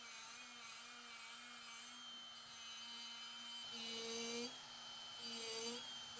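Dremel rotary tool spinning a small wire wheel against a rusty iron axe head, brushing off rust. A faint, steady high whine that swells briefly about four seconds in and again near the end, as the wheel bites harder.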